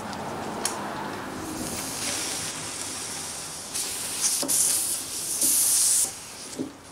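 Steam hissing from a steamer's wand held at a guitar's neck joint, with two louder spurts of steam about four and five and a half seconds in. The steam is softening the old glue so the neck can come off.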